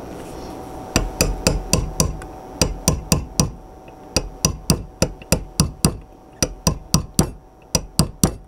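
Small hammer tapping a steel pin punch to drive a roll pin into a Springfield Armory XD-S 9mm pistol slide. Light metallic taps, about four a second, in runs, with a short pause midway, starting about a second in.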